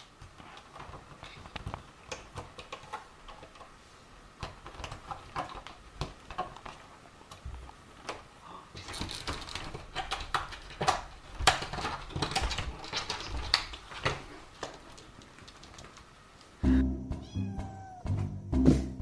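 Repeated knocks and bumps as a cat jumps at a toy hanging on a door and hits the door. About three-quarters of the way through the sound cuts to background music.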